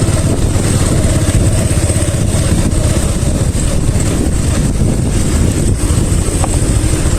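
Motorcycle running steadily while being ridden, its engine and road noise loud and continuous.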